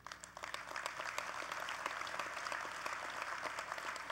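Convention hall audience applauding, starting abruptly and holding steady as a dense patter of many hands clapping.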